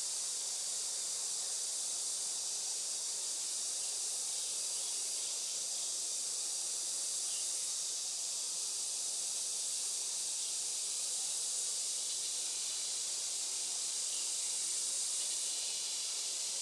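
Steady rain falling, an even high hiss with no breaks.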